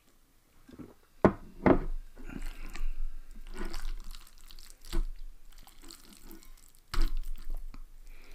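A glass bottle set down on the table with a knock, then a metal fork stirring and scraping through saucy instant noodles in a glass bowl. There are wet squelches and a few sharp clinks against the glass, the loudest about five and seven seconds in.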